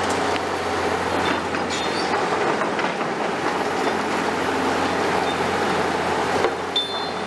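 Caterpillar 336E hydraulic excavator working a demolition crusher against concrete: steady engine running with scattered knocks and crunches of concrete, and two short high squeaks, about two seconds in and near the end.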